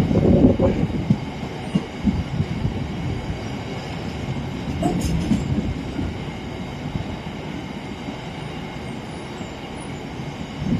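A train rolling past, a steady rumble with irregular knocking of wheels on the rails, loudest in the first second and easing off towards the end.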